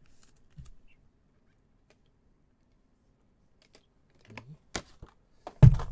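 Near silence, then a few short sharp clicks and taps, with a louder knock near the end.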